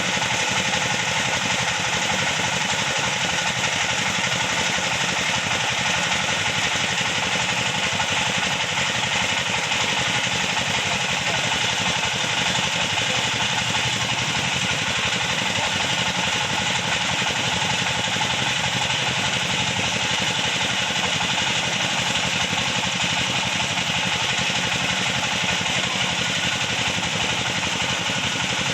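Sawmill machinery running steadily at an even pitch, with no change or break.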